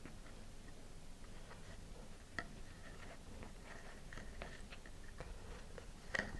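Faint handling noises of model rocket parts: soft rustling and small clicks as a nose cone is pushed into a cardboard body tube and the tube is handled, with a sharper tick about two and a half seconds in and a few louder clicks near the end.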